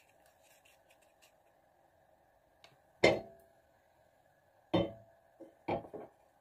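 A frying pan knocking against the gas stove's burner grate as it is lifted and set back down: one sharp clank about three seconds in, then a second clank and a few lighter knocks near the end, each with a short metallic ring.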